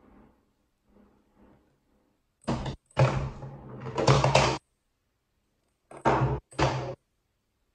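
LeapFrog Peek-A-Shoe Talking Octopus toy playing electronic sound effects through its small speaker: a long stretch about midway, then two short bursts near the end as a ball drops out under one of its shoes.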